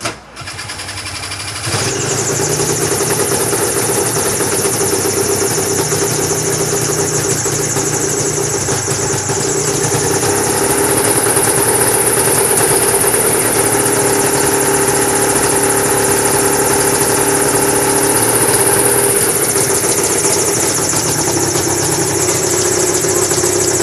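Small gyrocopter's engine catching about two seconds in and then running steadily, a little louder about halfway through.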